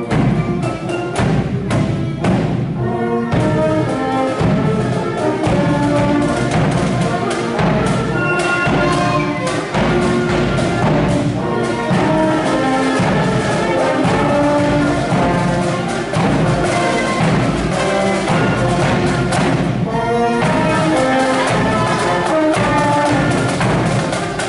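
Cadet marching band playing march music on brass, flutes and drums, steady and continuous.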